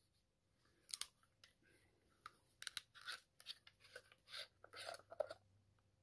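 Faint scattered clicks and scrapes of a plastic Fulton right-angle flashlight being handled and its threaded parts unscrewed, busiest in the middle of the stretch.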